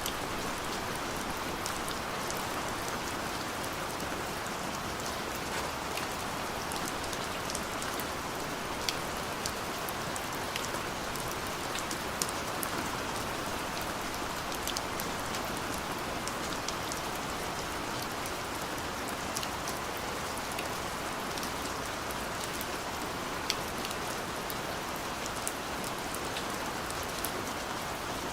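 Steady rain falling, an even hiss with many distinct drops ticking on a surface close by.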